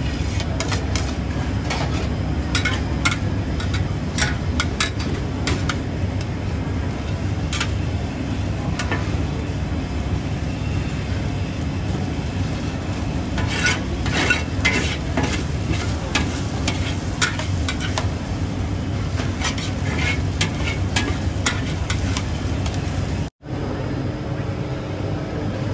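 Metal wok ladle scraping and clattering against a carbon-steel wok as fried Hokkien mee noodles are stirred and scooped out, with irregular sharp scrapes and knocks over sizzling and a steady low rumble.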